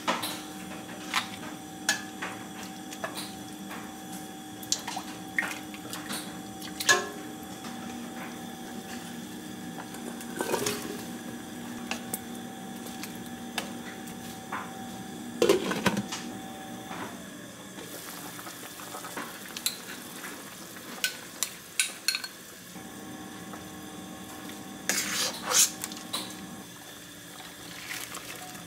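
Clinks, taps and knocks of a metal ladle and utensils against a stainless steel cooking pot, scattered irregularly, with a few louder clattering bursts as ingredients go in.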